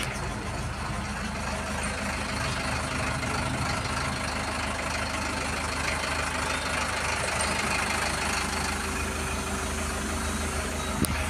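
The 49 HP diesel engine of an Escorts TRX15 pick-and-carry crane idling steadily, with a single sharp click near the end.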